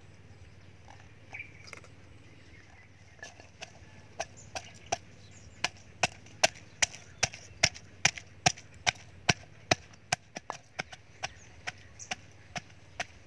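Wooden pestle pounding chilies and garlic in a clay mortar: a few faint taps at first, then steady sharp knocks about two to three a second from about four seconds in.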